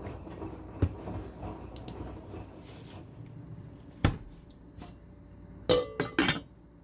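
A washing machine running with a low rumble and light clicks, then a single knock about four seconds in, and near the end about three quick clanks of a metal cooking pot that ring briefly.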